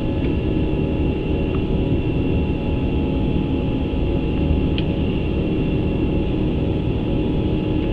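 Steady flight-deck noise of an Airbus A350 climbing after takeoff: a constant low rumble with faint steady whines above it, and a small click about five seconds in.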